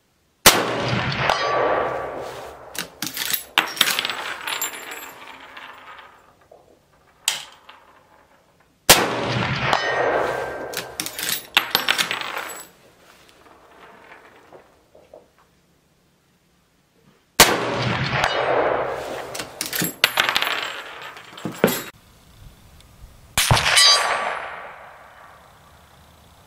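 Four shots from a Marlin 336C lever-action rifle in .30-30 Winchester, fired several seconds apart, each trailing off in a long echo. Sharp metallic clicks and clangs come between the shots.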